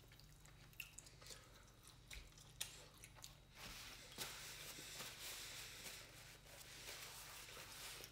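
Quiet chewing and small mouth clicks from someone eating fried chicken. From about three and a half seconds in, a paper napkin rustles steadily as the hands are wiped.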